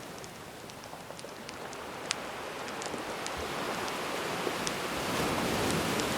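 Calm sea waves washing ashore, a rush of surf that swells slowly toward the end, with the scattered sharp pops and crackles of a wood fire over it.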